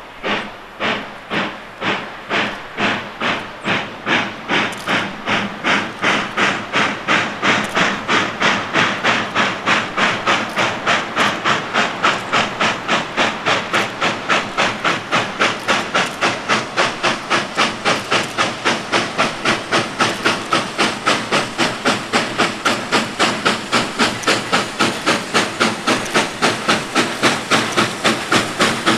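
Southern Pacific 2472, a 4-6-2 Pacific steam locomotive, working hard toward the listener with a steady run of sharp exhaust chuffs. The chuffs grow louder over the first several seconds and come faster as it nears.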